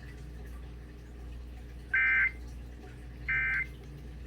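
Emergency Alert System end-of-message (EOM) data bursts: two short, loud, buzzy digital squawks about 1.3 seconds apart, the first about two seconds in, signalling the end of the alert. A steady low hum runs underneath.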